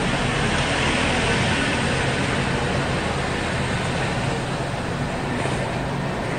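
Steady sizzling hiss of pork belly (samgyeopsal) cooking on a tabletop grill plate.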